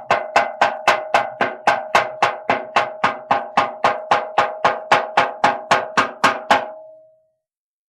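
Cartoon sound-effect door knocking: a long run of rapid, evenly spaced hollow knocks, about four a second, each with a ringing tone. The knocking stops about six and a half seconds in and the ring fades out.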